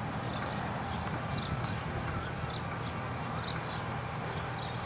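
Hitachi excavator's diesel engine running steadily, with repeated short high chirps over it.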